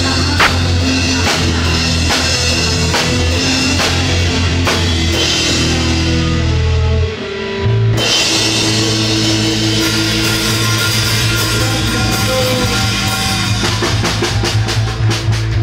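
Rock band playing live: a drum kit with cymbals over sustained bass and guitar. The band drops out briefly about seven seconds in and comes back in on a hard hit, and the drums play a fast run of strokes near the end.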